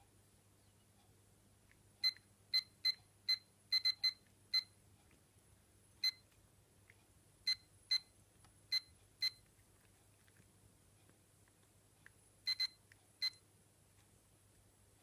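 Sharp taps on the glass globe of a plasma ball as a cat paws at it, each giving a short ringing ping. There are about sixteen, in irregular bursts with a pause in the middle, over a faint steady hum.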